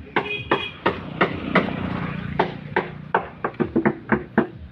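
Repeated hammer blows, about three a second and quickening toward the end, with a low steady hum beneath them partway through.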